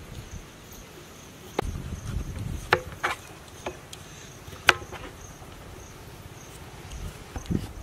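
Small kitchen knife slicing through raw potatoes, a few sharp, irregularly spaced clicks as the blade cuts through and hits the board, over the steady chirping of insects.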